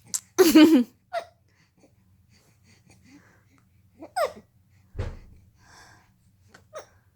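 A baby hiccuping: several short, sudden hics spread over a few seconds, some with a brief voiced squeak.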